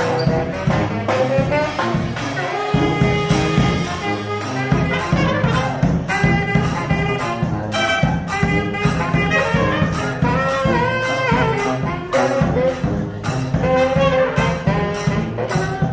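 Brass band playing live: trumpets, trombones and saxophones over a steady drum beat, with a falling horn line about two-thirds of the way through.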